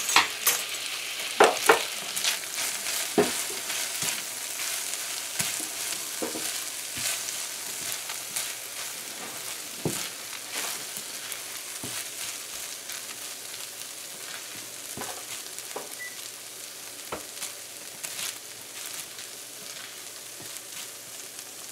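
Sweet rice sizzling gently in a nonstick frying pan on low heat while a silicone spatula stirs and folds it, with irregular scrapes and light knocks of the spatula against the pan, more frequent in the first few seconds.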